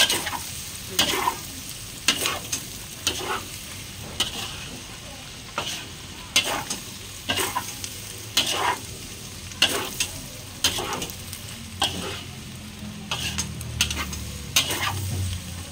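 Metal spatula scraping and knocking against a stainless steel wok about once a second as food is stir-fried, over a steady frying sizzle.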